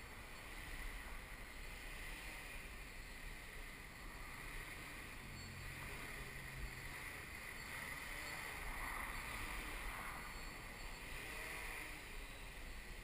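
Electric propellers and motors of an XAircraft X650V X8 eight-motor multirotor humming in a hover, swelling louder for a few seconds past the middle as the throttle is worked up and down. Wind rumbles on the microphone underneath.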